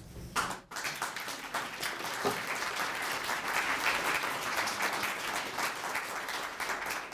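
Audience applauding at the end of a talk: many hands clapping, beginning about a second in and keeping up steadily.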